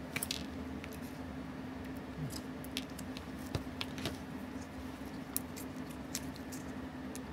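Faint scattered clicks and small taps of steel tweezers and fingers handling a wristwatch movement and its metal movement holder, over a steady low hum.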